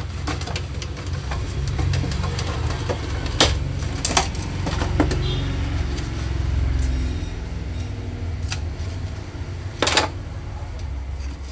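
The cover of an APC Back-UPS 600 being lifted off, turned over and set down, with several sharp clicks and knocks of the casing. A steady low rumble runs underneath.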